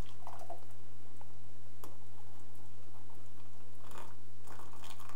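A steady low hum, with faint scrapes and light clicks from a wooden spoon working jaggery syrup out of a steel pan into a glass jug.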